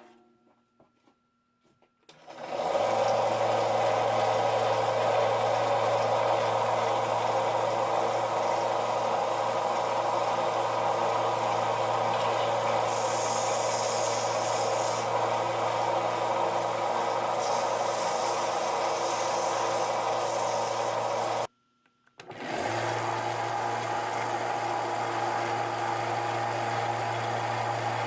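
Harbor Freight 1" x 30" belt sander switched on about two seconds in, its electric motor and belt running with a steady hum and whir. It drops out suddenly for about a second near the end, then runs on steadily.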